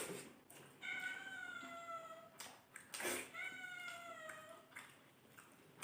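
A cat meowing twice, two long drawn-out meows, with a short noisy burst before the second one.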